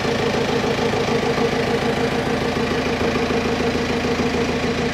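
A diesel engine running steadily, with an even, fast pulsing and a steady hum.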